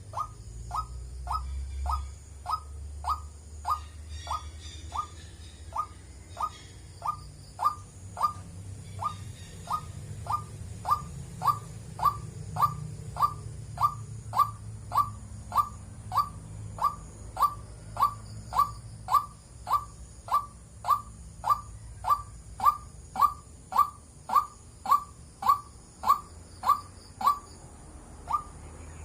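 White-breasted waterhen calling: a long run of short, evenly spaced notes, a little under two a second, growing louder in the second half. A low rumble runs underneath.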